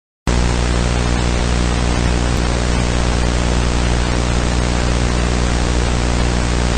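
Steady static hiss with a low electrical hum under it, starting abruptly a moment in.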